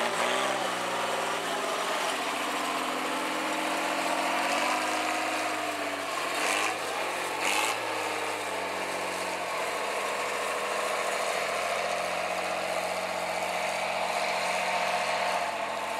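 Diesel engine of a Fiat-Allis wheel loader running, its speed drifting up and down slightly. There are two brief bursts of hissing noise a little past halfway.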